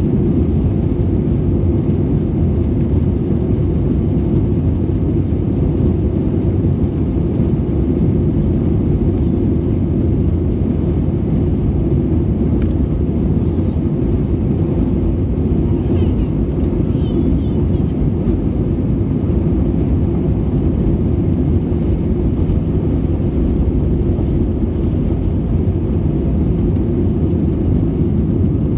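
Airbus A320 jet engines at takeoff power, heard from inside the passenger cabin during the takeoff roll: a steady, loud, low roar.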